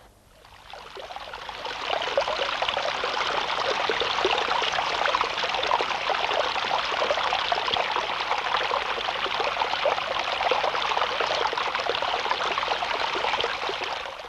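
Water trickling and splashing over stones in a small stream, a steady bubbling rush that fades in over the first couple of seconds and stops right at the end.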